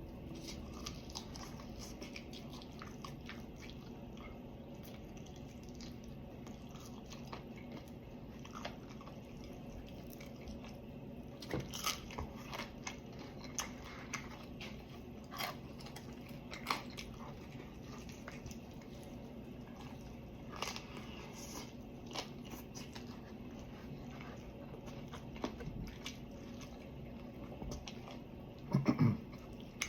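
Person eating fried chicken close to the microphone: irregular crunching bites into crispy skin and wet chewing, with a few louder crunches scattered through and a short low hum near the end.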